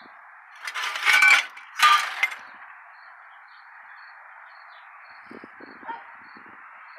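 Loose pieces of plasma-cut sheet-steel scrap clanking against each other in two short bursts about a second in, ringing briefly, then a few faint knocks near the end.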